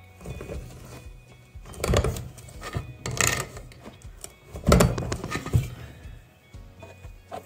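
Hand-lever guillotine tool shaving spot-weld residue off a lithium-ion cell's terminal: the lever is pulled down and the blade scrapes across the cell end, giving a few metallic knocks and a scrape, the loudest nearly five seconds in. Background music runs underneath.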